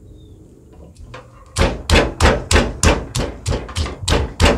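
Stone pestle pounding in a stone mortar, crushing bird's eye chilies for green curry paste. The strokes start about a second and a half in and follow one another steadily, about three a second.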